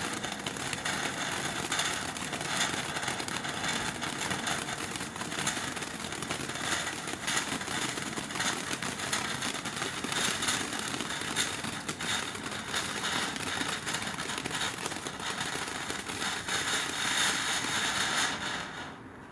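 TNT Global Lights consumer firework going off with a continuous hiss and dense rapid crackling, which dies away just before the end.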